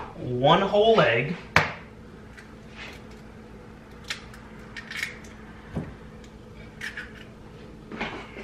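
An egg cracked against a blender jar, with one sharp tap about one and a half seconds in, then scattered light clicks and taps.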